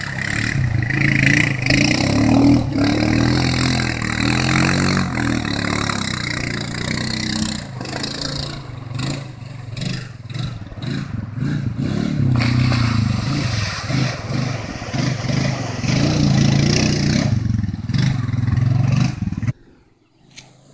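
Honda FourTrax 420 ATV's single-cylinder engine revving up and down as it drives through a shallow river. The sound cuts off abruptly near the end.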